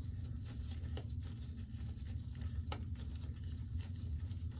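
Faint rustling and soft clicks of gloved hands plaiting wet locs, over a steady low hum.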